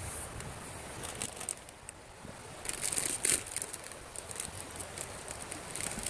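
Wood campfire crackling: irregular sharp pops and snaps over a low hiss, thickest about three seconds in and again near the end.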